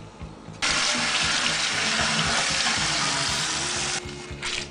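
Kitchen tap water running into a sink: switched on suddenly about half a second in, flowing steadily for about three and a half seconds, then shut off sharply.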